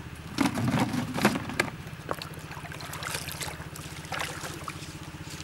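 Pond water splashing and sloshing around a person wading waist-deep, loudest for about a second near the start, then lighter splashes.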